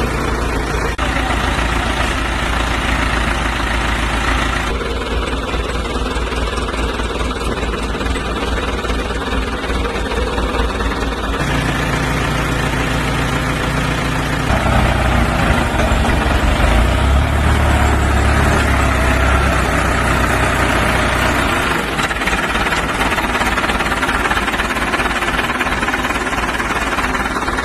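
An engine running steadily with a rapid low knocking pulse. Its sound changes abruptly several times.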